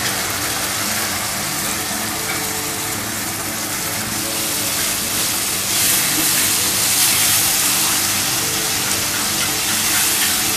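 Tomato puree sizzling in hot oil and fried spice masala in a frying pan, a steady hiss that grows brighter and a little louder about halfway through as it is stirred with a spatula.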